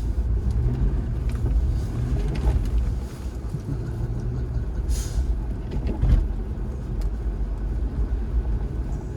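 Supercharged Jaguar V8 engine running steadily at low road speed, with tyre and road noise over a wet, salted road. One brief louder whoosh comes about five seconds in.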